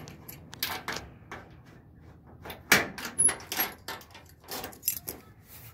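Keys jangling and a key turning in the trunk lock of a 1969 Chevelle, with a string of clicks and clunks as the latch releases and the trunk lid lifts. The loudest clunk comes a little under three seconds in.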